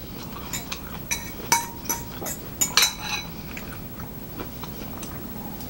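Metal spoon clinking and scraping against a ceramic bowl during eating, a run of light clinks, some with a short ring, bunched in the first three seconds and sparser after.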